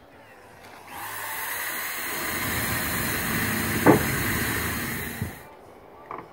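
Cordless drill running steadily for about four seconds, drilling at a solar panel's mounting frame, with one sharp crack partway through before it stops suddenly.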